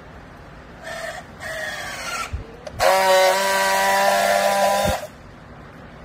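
Battery-powered handheld plastic strapping tool working a strap around a bale. Its motor whines and rises in pitch from about a second in as it tensions the strap. Then comes a louder steady hum for about two seconds as it friction-welds the strap seal, cutting off abruptly.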